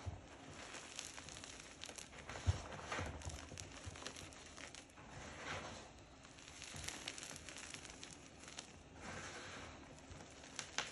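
Hands squeezing and pressing into a heap of loose gym chalk powder, giving soft, irregular crunching of packed powder. There is a soft thump about two and a half seconds in.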